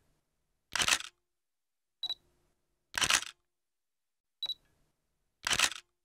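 Camera shutter fired repeatedly, about once every two and a half seconds. Each firing is a short sharp click with a brief high ping, followed about a second later by a louder, longer noisy burst of mechanical clatter.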